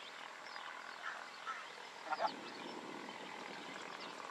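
A few short animal calls over faint outdoor background, the loudest a quick stuttering call about two seconds in, with faint high bird chirps.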